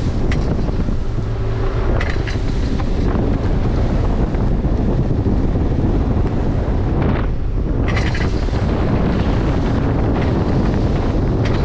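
Boat running at speed on open water: heavy wind buffeting the microphone over the rush of water along the hull and the outboard motor's drone, with a few brief gusts.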